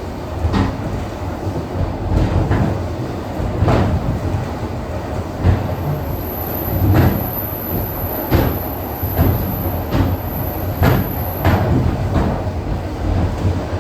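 ED4M electric multiple unit running along the line: a steady rumble with wheels knocking over rail joints about once a second at uneven spacing.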